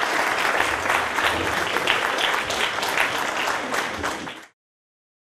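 Audience applauding, many hands clapping steadily, then cut off abruptly near the end.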